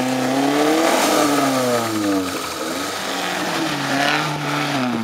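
Suzuki Samurai 4x4's engine revving, its pitch rising and falling several times as the driver works the throttle through deep mud.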